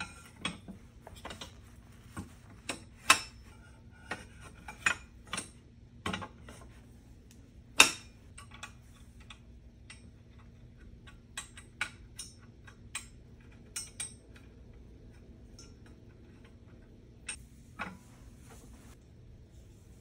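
Small metal clicks and clinks from a black metal table frame being assembled by hand as the side bars and their hardware are fitted. The clicks are irregular, with two sharper knocks about three and eight seconds in, and they thin out in the second half.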